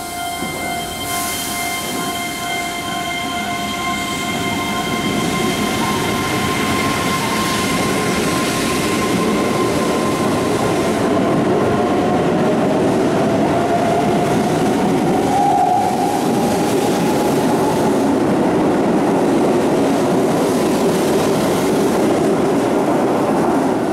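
Keihan 13000-series electric train pulling out of the station and accelerating past, its motor whine rising in pitch through the middle while the rolling noise of its wheels on the rails grows louder.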